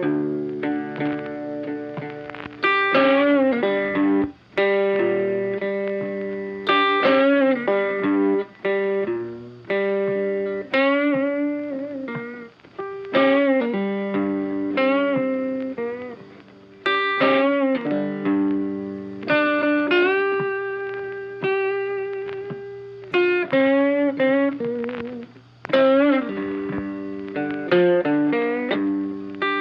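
Background music: a funky plucked electric guitar picking out a repeating riff of short notes.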